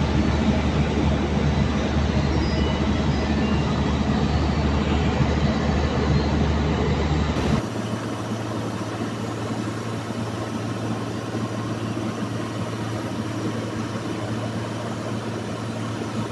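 Large diesel engine running steadily. About seven and a half seconds in, the sound cuts abruptly to a slightly quieter, steadier engine hum.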